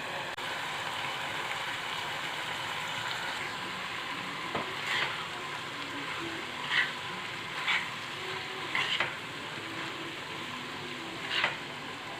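Boiled vermicelli being stirred into a vegetable masala frying in a pan: a steady low sizzle, with a spatula scraping the pan about five times.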